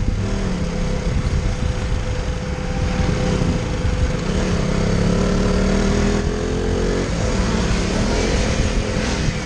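Single-cylinder engine of a KTM RC 200 running under way, its revs climbing and easing several times. Wind rumbles on the microphone underneath.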